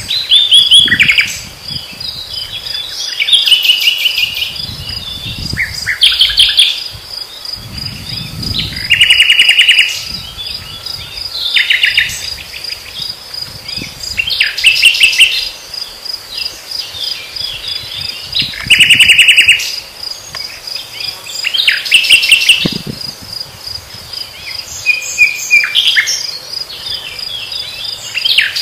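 Common nightingale singing in short phrases every two to three seconds, each a run of rapidly repeated notes and whistles. Underneath, crickets keep up a steady, high, pulsing chirp.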